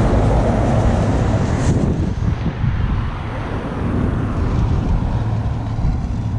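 Wind rumbling on the microphone mixed with road traffic passing, louder in the first two seconds and then easing.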